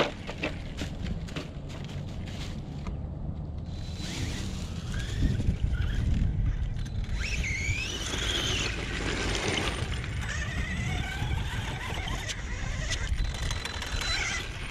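Brushless electric motor and drivetrain of a Redcat Volcano EPX Pro RC truck whining, rising and falling in pitch as the truck accelerates and slows on dirt, over a steady low rumble, with a few sharp clicks early on.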